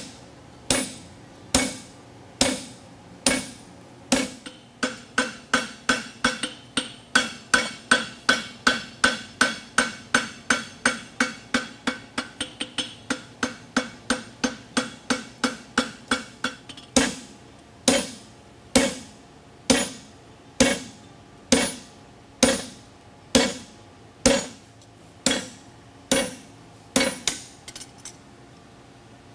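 Farrier's hand hammer striking a red-hot steel draft horseshoe on an anvil, forging the shoe, each blow leaving a short ring. The blows come about one a second at first, quicken to two or three a second from about five seconds in, then slow to about one a second after the middle and stop near the end.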